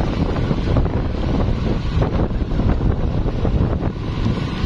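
Steady wind buffeting the microphone of a moving vehicle: a dense low rumble. The engine of the smoking Hino RK diesel truck chassis driving just ahead runs underneath it.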